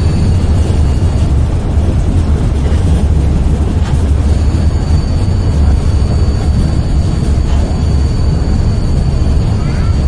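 Inside a moving metro train car: a steady low rumble of the train running on the track, with a thin high whine that drops out about a second in and comes back after about four seconds.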